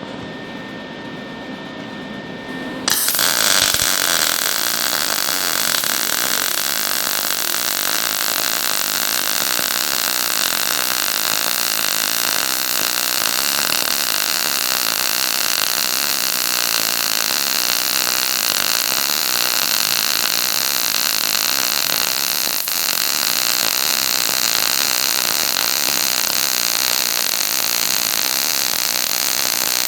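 MIG welder arc laying a long continuous bead on heavy steel plate and square tube, a steady loud crackling hiss that starts suddenly about three seconds in.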